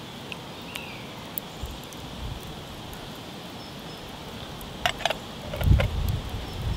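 A metal lid set onto a metal camping pot, with a few sharp clinks about five seconds in, followed by low handling bumps. Before that there is only a quiet steady outdoor background.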